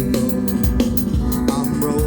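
Band playing an instrumental passage: drum kit keeping a quick, even beat under bass and electric guitar.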